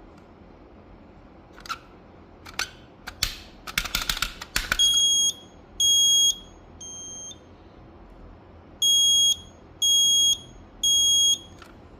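Quell smoke alarm sounding on test: loud, high-pitched half-second beeps in groups of three, about one a second, with a longer pause between groups (the temporal-three alarm pattern). The third beep of the first group is weaker. A few clicks and rustling from the alarm being handled come before the beeps.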